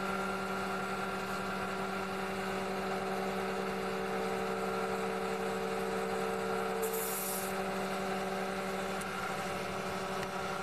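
Hydraulic pump unit of a planter row-unit down-force display stand running with a steady hum of several tones. About seven seconds in there is a short hiss, and one of the higher tones drops away.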